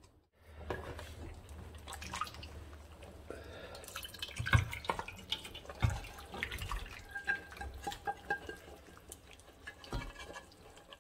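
Stewed lamb, potatoes and their juices sliding and plopping wetly out of a tilted pot onto a ceramic platter, with scattered knocks and clinks of the pot and serving spoon.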